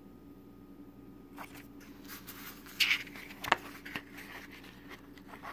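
Glossy paper booklet pages rustling as they are flipped over by hand, with a sharp snap of paper midway.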